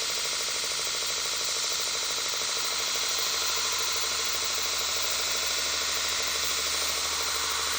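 A workshop power tool running steadily, a constant noisy whir.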